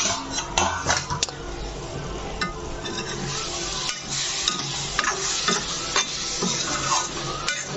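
Ivy gourd pieces in masala sizzling in a metal kadai while a steel spoon stirs them, with the spoon scraping and clinking against the pan every second or so.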